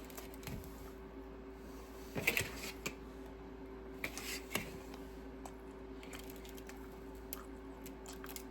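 Scattered light clicks and taps, a small cluster about two seconds in and a few more around four seconds, over a steady low hum.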